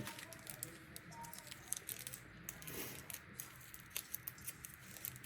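Small plastic jewelry bag rustling and crinkling as it is handled, with many light scattered clicks.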